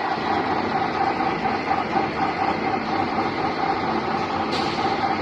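Engine lathe running: a steady mechanical drone with a faint constant whine, and a brief sharp tick near the end.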